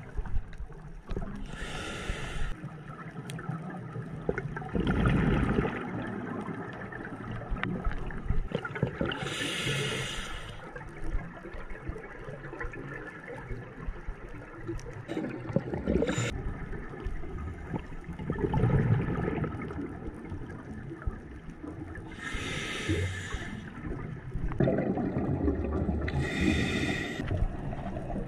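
A scuba diver breathing through a regulator underwater: four hissing inhalations, each followed by a low gurgling rumble of exhaled bubbles.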